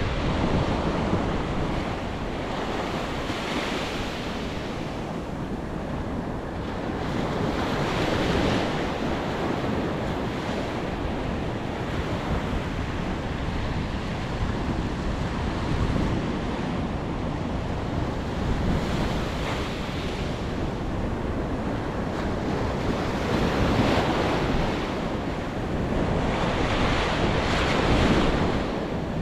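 Ocean surf washing onto a beach, swelling louder every few seconds, with wind buffeting the microphone.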